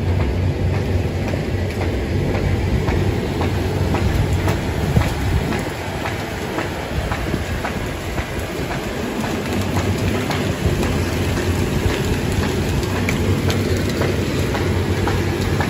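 Electric-motor-driven shredder chopping dry sugarcane stalks fed in by hand: a steady, loud machine hum with a continuous rattle of sharp clicks and knocks from the cane being cut.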